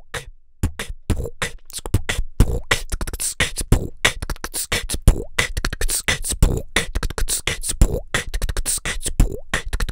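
Beatboxing close into a condenser microphone: a fast, dense run of mouth-made percussive hits that starts about half a second in.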